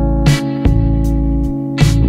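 Background music: held chords over a low bass with a slow beat, a sharp hit falling twice, about a second and a half apart.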